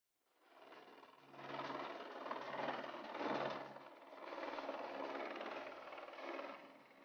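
Helicopter flying overhead: a fast, steady rotor chop over the engine, fading in at the start and loudest about three seconds in.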